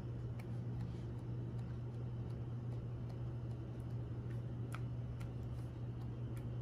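Faint, irregular ticks as a three-colour marker tip is pressed into white slime, stamping dots, over a steady low hum.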